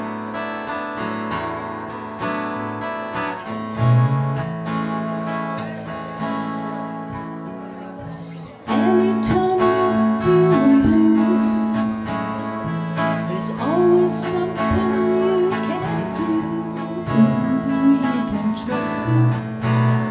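Live acoustic guitar music, picked and strummed, opening a song. About nine seconds in it gets louder and fuller, with a melody line over the guitar.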